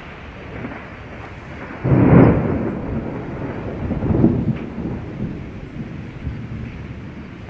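Thunder rumbling over steady heavy rain: a sudden loud, low rumble breaks about two seconds in, swells again a couple of seconds later, then slowly dies away into the rain.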